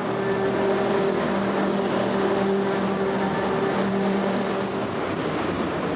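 Overhead workshop crane running as it lifts a train car body: a steady hum with a higher tone above it, dropping out briefly a few times, over a steady wash of machinery noise.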